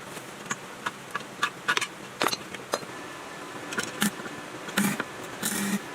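Irregular sharp clicks and knocks of hand tools and metal parts being worked on a diesel engine, with two longer scraping bursts near the end, over a faint steady high buzz.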